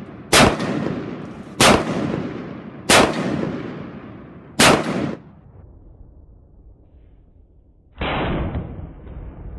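Semi-automatic AR-15 rifle with an Osprey 416 external-piston conversion kit firing 5.56: four shots about a second and a half apart, each followed by a long echoing tail. After a pause, a fifth, duller shot near the end.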